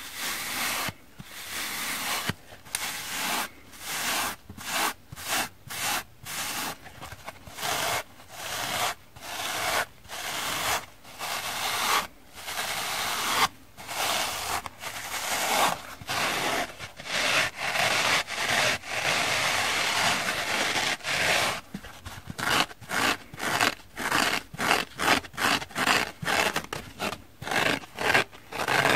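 Two dry kitchen sponges, pink foam with purple scouring pads, rubbed against each other in repeated strokes, about one a second. About twenty seconds in, the strokes turn shorter and quicker, two to three a second, as the rubbing gives way to scratching.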